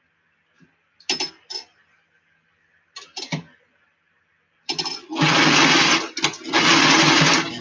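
Electric sewing machine stitching, starting up about five seconds in and running in quick stretches with a brief stop about a second later. Before it, a few short clicks and knocks.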